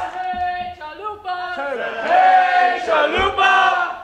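Group of teenage voices chanting a call-and-repeat warm-up chant, a leader's call answered by the group in unison, with a thump about three seconds in.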